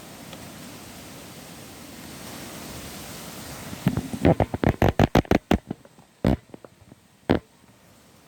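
A steady rushing noise, then a quick run of sharp knocks or thumps about four seconds in, followed by two more single knocks.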